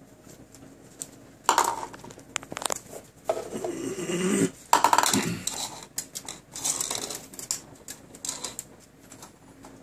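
A plastic yogurt container clattering and scraping on a wooden floor as a dog licks out the residue and shoves it along with her snout. The knocks and scrapes come in bunches, with a sliding, squeaky scrape a few seconds in.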